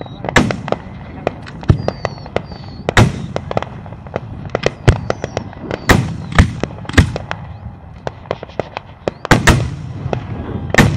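Aerial fireworks display: shells bursting overhead in an irregular run of sharp booms and crackling pops, with the biggest bangs about three, six and nine and a half seconds in. A few faint short whistles sound among the bursts.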